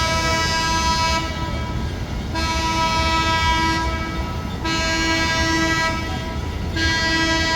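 A horn sounding long blasts over and over, each a steady tone about a second and a half long with a short gap between, four blasts in all.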